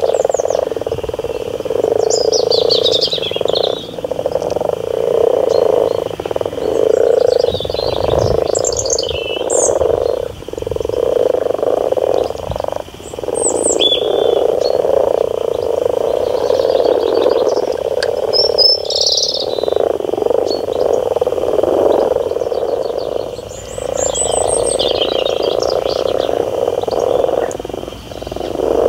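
A dense chorus of frogs croaking steadily, briefly dipping every few seconds, with birds singing short high phrases over it several times.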